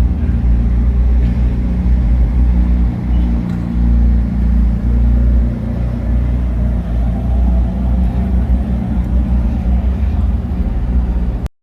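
A car heard at street level: a steady, loud low rumble with a faint rising whine about two thirds of the way through, cutting off suddenly near the end.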